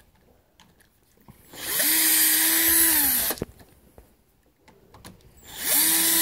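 Power drill driving out two screws, running in two bursts of about a second and a half each, the motor whine rising as it spins up and dropping as it stops.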